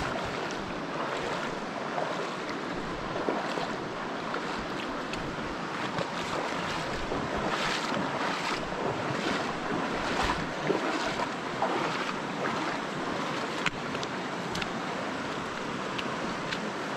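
Virgin River water rushing steadily, broken by irregular splashes of legs wading through it, with some wind on the microphone.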